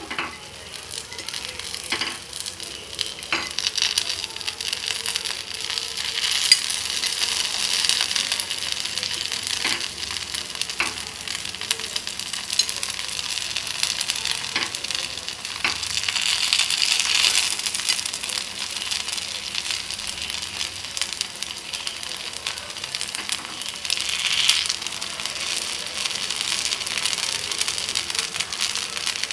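Black-rice kuzhi paniyaram batter sizzling in hot oil in a cast-iron paniyaram pan. It is a steady sizzle that swells and eases, with a few light clicks of a metal skewer against the pan as the paniyaram are turned over.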